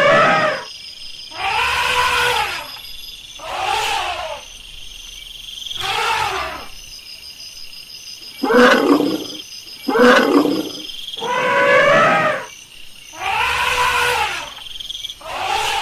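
Elephant trumpeting: about eight calls in a row, each under a second, rising then falling in pitch, a second or two apart.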